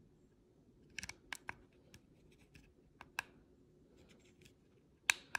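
Buttons on a Flipsky VX2 Pro handheld electric-skateboard remote being pressed: about eight sharp plastic clicks at uneven intervals, the loudest two close together near the end.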